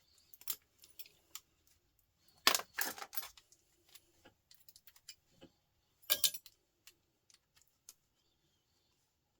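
Small metal scrap parts and hand tools clicking and clinking as a component is pulled apart by hand. There is a louder clatter of clinks about two and a half to three seconds in, and another about six seconds in.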